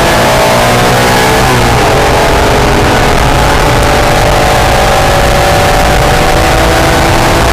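Acura NSX's V6 engine under hard driving, heard from inside the car: the engine note drops sharply about a second and a half in, as at a gear change, then climbs steadily as the car pulls, over a heavy rumble of road and wind noise.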